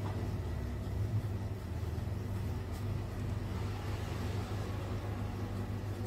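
A steady low hum from a motor or machine, even throughout.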